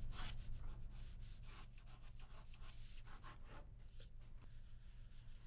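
Ballpoint pen scratching across paper in a quick run of short sketching strokes, thinning out after about four seconds, over a low steady hum.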